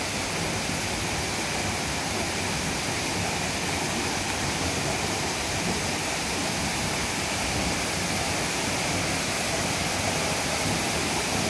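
Steady rush of a waterfall and the creek below it, growing slightly louder near the end.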